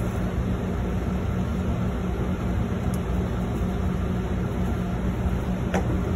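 Steady low rumble and constant hum of commercial kitchen equipment running beside a flat-top griddle, with a faint click about three seconds in and another near the end.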